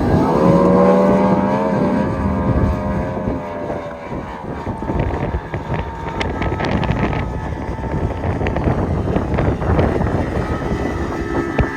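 Motorboat engine running under way, its pitch wavering for the first few seconds and then holding steady, with wind buffeting the microphone.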